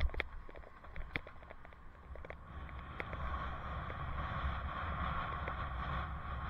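Wind rushing over a bicycle helmet camera's microphone, over a low rumble, growing louder about two and a half seconds in. Scattered sharp clicks and knocks come in the first few seconds.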